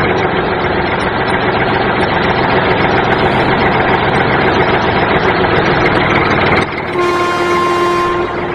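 Train running with a steady, dense rumble that cuts off suddenly a little under seven seconds in, followed by a steady horn blast of just over a second.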